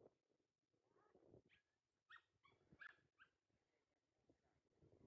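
A small dog whimpering faintly: about five short, high whines in quick succession, starting about a second and a half in.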